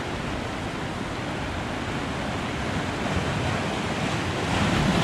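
Sea waves breaking and washing over rocks at the water's edge, a steady surf noise; a wave surges louder near the end.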